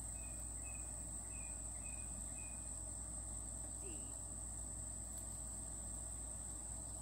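Insects trilling in one steady high tone, with a few short faint chirps in the first couple of seconds over a low outdoor rumble.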